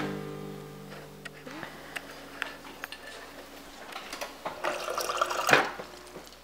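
A lingering chord of background music fades out over the first two seconds. A few light clicks and taps follow, then water runs from a refrigerator door dispenser into a glass for about a second near the end, stopping with a sharp knock.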